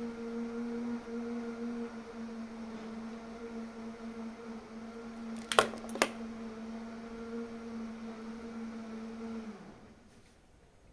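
A small electric motor runs with a steady hum, then sags in pitch and stops about nine and a half seconds in. Two sharp clicks, about half a second apart, come near the middle.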